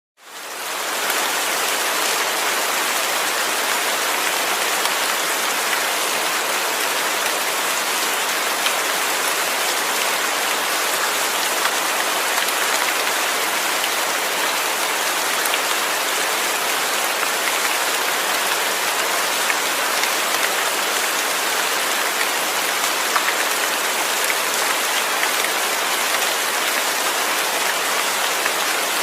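Steady rain falling, an even hiss with scattered faint ticks of individual drops; it fades in over the first second.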